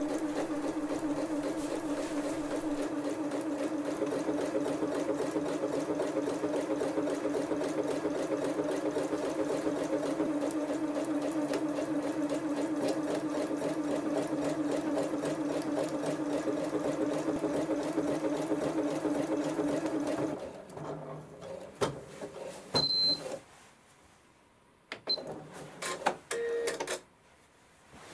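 Janome 5270 QDC computerised sewing machine stitching a buttonhole by itself, its motor humming steadily and the needle running at a fast even rate. The machine stops about 20 seconds in, when the buttonhole is finished. A few clicks and two short high beeps follow.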